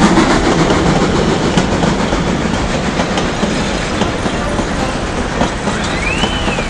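Steam train running on the rails: a steady rumble with faint clicking of wheels over rail joints. Near the end a brief high tone rises and falls.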